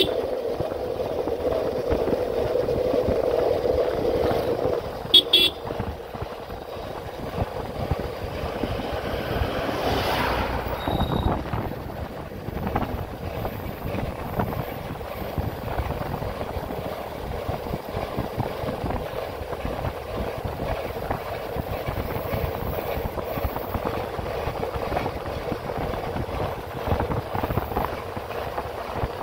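Road traffic noise with a vehicle horn held steadily for about the first five seconds, then cut off; a brief whoosh of a passing vehicle about ten seconds in, over the steady rush of the road.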